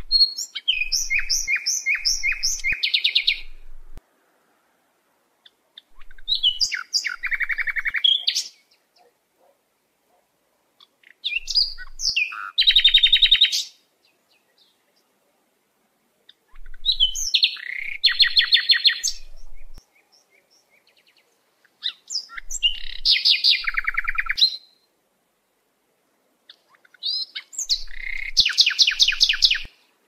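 A songbird singing the same short song six times, about every five seconds: each phrase is a run of clear high notes that drops into a fast trill, with silent pauses between.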